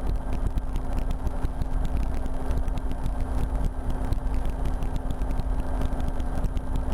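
RotorWay experimental kit helicopter in cruising flight, heard from the cockpit: a steady engine and rotor drone with a constant low hum and a fast, even beat.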